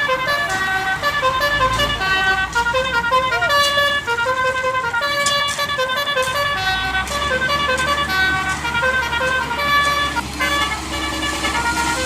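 A fast tune of pitched notes, several sounding at once, with a low steady hum joining about seven seconds in.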